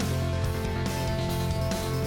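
Background music: sustained tones over a steady low bass, with a hint of guitar.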